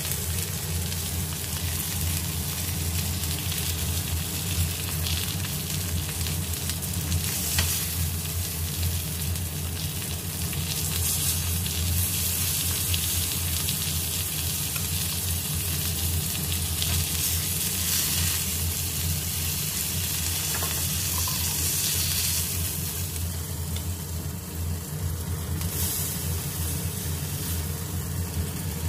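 Chicken drumsticks sizzling on a ridged cast-iron grill pan, a steady frying hiss as the pieces are turned. A steady low hum runs underneath.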